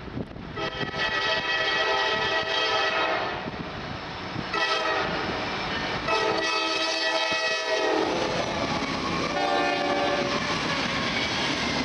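Approaching Norfolk Southern freight train, led by a rebuilt EMD SD60E, sounding its multi-note air horn in four blasts, the first the longest. The lead locomotive's engine and the wheels on the rail then rumble past close by as the tank cars follow.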